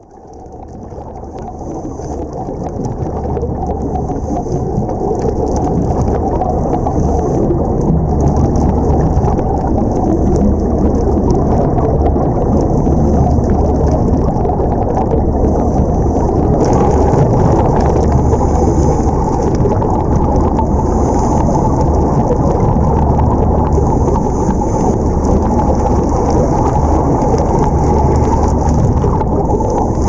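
Muffled, steady underwater rumble of water noise picked up by the camera in its housing. It fades in over the first few seconds, then holds loud and even.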